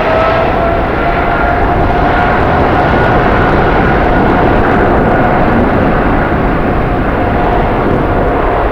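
Airliner's jet engines running loud, with an engine whine that rises at the start and then holds steady over a broad rush of noise.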